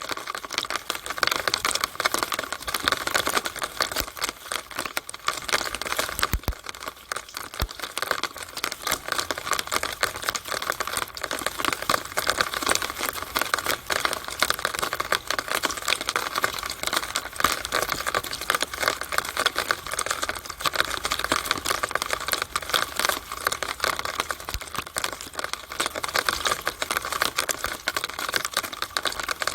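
Rainwater in a downspout, a steady dense patter of drops ticking and splashing irregularly.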